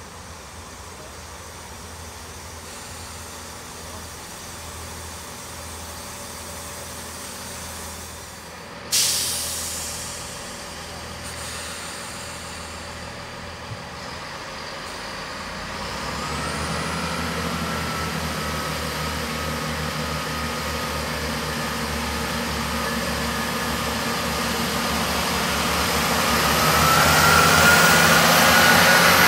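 Class 166 Turbo diesel multiple unit at a station: a sudden loud hiss of air from its brakes about nine seconds in, dying away over a second. From about halfway its diesel engines run up with rising whines as it pulls away, growing louder as the carriages pass close by.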